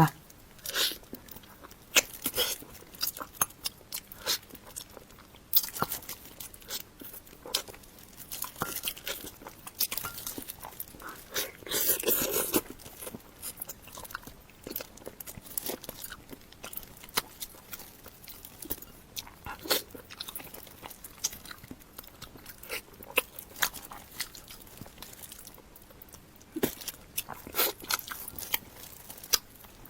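Close-miked eating sounds of a person working through a salmon head: biting, chewing and crunching with irregular sharp clicks and crackles, and a thicker stretch of crunching about twelve seconds in.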